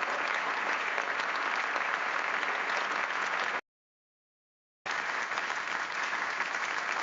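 AI-generated sound effect of a small group applauding, made from the prompt "small group cheer and applause" and played as two takes: the first stops abruptly about three and a half seconds in, and after about a second of dead silence the second take starts.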